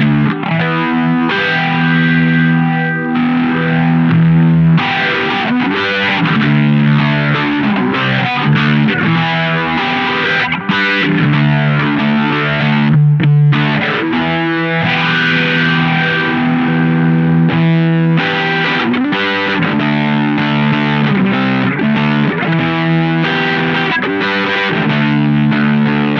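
Distorted electric guitar played through an Electro-Harmonix Bad Stone phase shifter pedal, sustained chords changing every second or two.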